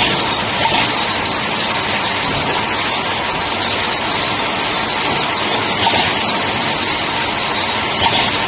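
Shrink sleeve labeling machine running, with its hot-air pre-heater blowing: a loud, steady rushing noise. A few short, louder hisses come about a second in, near the middle and near the end.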